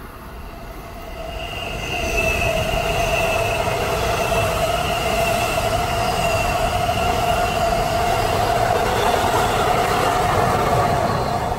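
NJ Transit bilevel passenger train passing at speed: the steady rush and rumble of its wheels on the rails builds over the first two seconds and holds, with steady high-pitched ringing tones over it.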